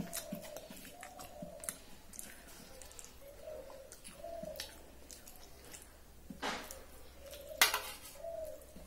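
Eating rice by hand from stainless steel plates: fingers mixing and scooping rice with small ticks and soft chewing, and two sharp clinks of metal plates about six and a half and seven and a half seconds in, the second the loudest.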